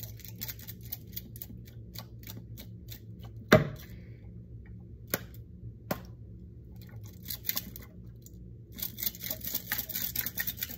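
Small plastic bead-filled container being shaken hard over a sink to drain its last water: runs of quick rattling clicks from the beads inside, with one sharp knock about three and a half seconds in.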